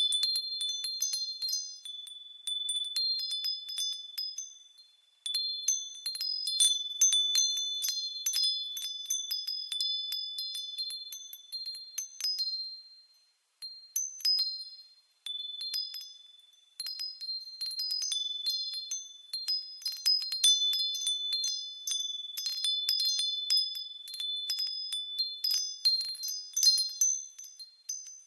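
Wind chimes tinkling: irregular clusters of high, clear strikes whose tones ring on and overlap, with a few brief lulls where the ringing dies away before the next gust of strikes.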